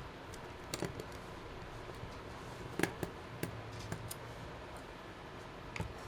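A few scattered light clicks and taps of small hard objects being handled, the clearest pair about three seconds in.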